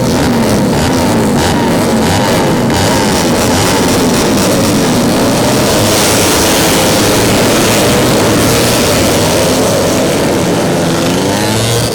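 A pack of four-stroke 150cc underbone race motorcycles revving hard together, many engine notes rising and falling over one another in a loud, rasping blend.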